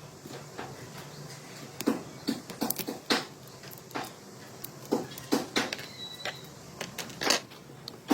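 Irregular light clicks and knocks of small hard objects being handled, some coming in quick clusters, over a faint steady hiss.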